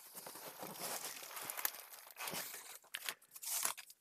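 Packing foam tray loaded with plastic-bagged parts being lifted out of a cardboard shipping box: irregular rustling and crinkling of plastic bags and foam rubbing on foam and cardboard, with louder scrapes about two and three and a half seconds in.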